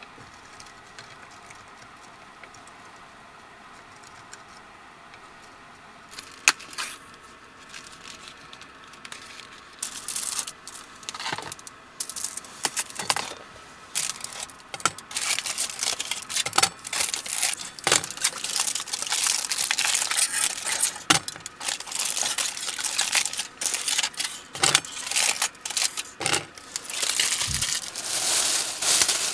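Irregular crinkling and rustling with small sharp clicks, like something being handled and unwrapped, starting about ten seconds in and growing busier. Before that there is only a faint steady hum.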